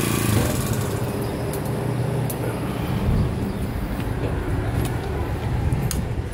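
Small motorized-bicycle engine idling with a steady low putter, with a few light clicks over it.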